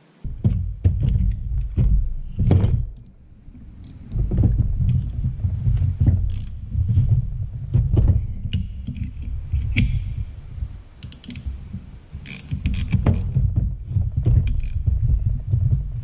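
Hand ratchet wrench clicking in short strokes as the bolts of a Bobcat skid steer cooling-fan angle-drive gearbox are tightened, with knocks of metal on metal over a heavy low rumble. It pauses briefly about three seconds in.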